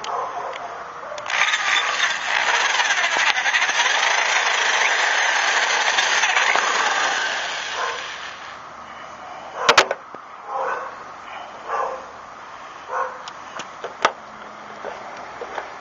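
Cordless drill running, its bit boring into the metal tailgate-strap bracket for about seven seconds before stopping. Afterwards a dog barks a few times and there are two sharp knocks.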